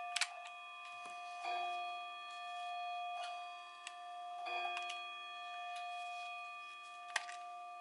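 A few sharp light clicks from small plastic and metal parts of an Agidel electric shaver being handled while it is taken apart, over a steady set of high, unwavering tones.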